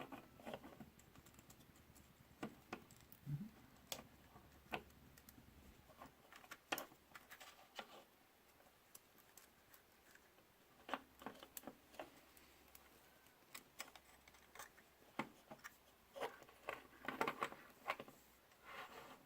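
Faint, irregular small clicks and taps from handling the tiny parts of a drone's gimbal camera while working a ribbon cable into place, with little clusters of them in the second half.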